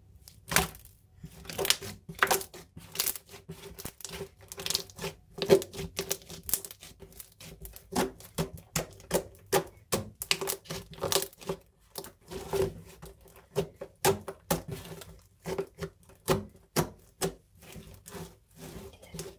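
Slime being kneaded and squeezed by hand, giving sharp, irregular clicks and pops as air pockets burst, two or three a second.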